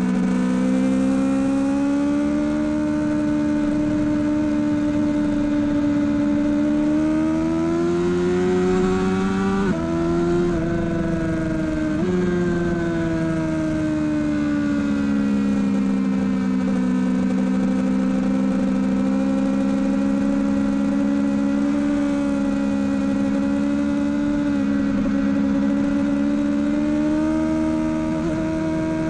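Sport motorcycle engine heard from onboard at speed, with wind rush: the revs climb for a few seconds, drop sharply twice in quick succession about a third of the way in as gears change, then ease off and hold steady.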